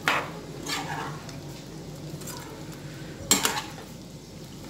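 Steel spoon stirring fried cauliflower into gravy in a nonstick kadai, with a few clinks and scrapes of the spoon against the pan. The sharpest clink comes about three seconds in.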